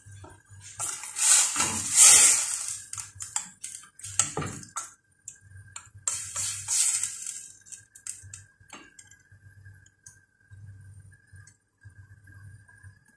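A plastic slotted turner stirs chicken pieces in coconut milk in a stainless steel pot, scraping and knocking against the pot in three bursts of clatter, loudest about two seconds in, then a few light taps.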